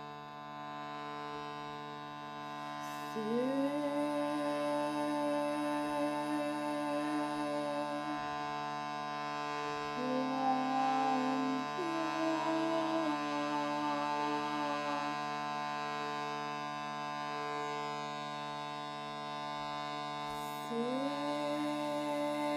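Shruti box drone of several steady reeds, with a wordless voice singing long held tones over it: one note slides up into place a few seconds in and is held for about five seconds, shorter notes step up and down around the middle, and another note slides in near the end.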